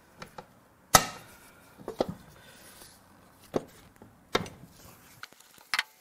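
Hand tools and metal parts of a transfer case being taken apart knock and clink against each other. There are about half a dozen separate sharp knocks, and the loudest comes about a second in.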